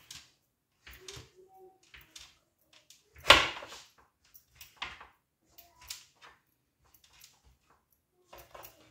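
Knife slicing through rolled dough and tapping on a wooden cutting board: a string of irregular short knocks, with one much louder knock a little over three seconds in.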